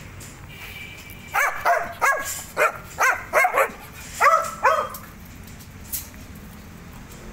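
Dog barking at another dog: a quick run of about nine sharp barks, starting about a second in and stopping about five seconds in.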